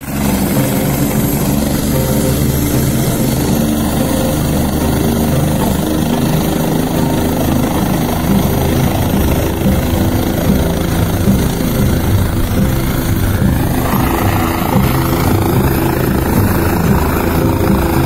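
Helicopter running on the ground with its rotors turning: a steady engine whine over the rapid beat of the blades. Near the end, a rushing hiss rises over it.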